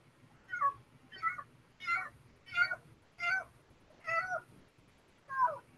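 A cat meowing over and over: about seven short calls, each falling in pitch.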